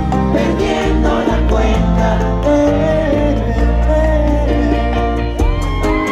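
Live bachata band playing over a concert PA, heard from within the crowd: a steady bass beat with fast percussion, and a voice or lead line gliding in pitch near the end.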